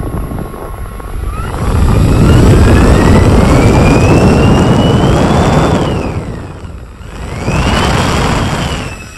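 Powerfun 70 mm, 12-blade electric ducted fan spooling up under throttle: a rushing blast of air with a whine that climbs steadily in pitch, drops back about six seconds in, then climbs again briefly and falls away near the end.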